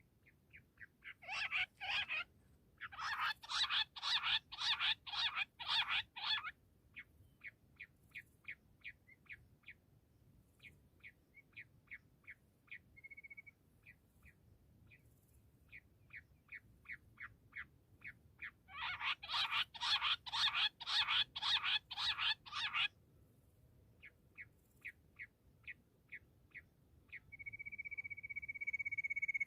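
Bush quail calling: rapid runs of short, high-pitched notes at about four a second, with loud, dense stretches near the start, in the first quarter, and about two-thirds of the way in, and softer runs between. Near the end a steady high whistle-like tone comes in and becomes the loudest sound.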